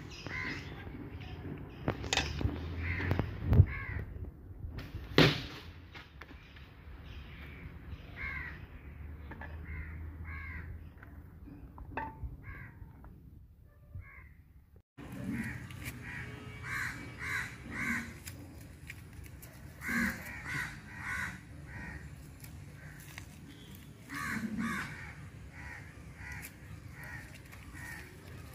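Crows cawing repeatedly in runs of short calls, with a few sharp knocks in the first few seconds.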